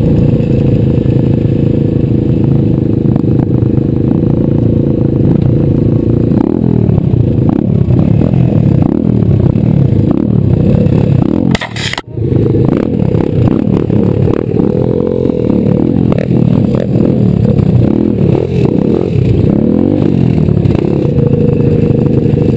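125cc pit bike's single-cylinder engine running close up under the rider, its pitch rising and falling with the throttle. The sound cuts out briefly about halfway, then the engine runs on with a few quick revs.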